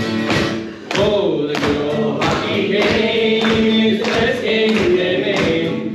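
Live music: an acoustic guitar strummed to a steady beat under singing voices.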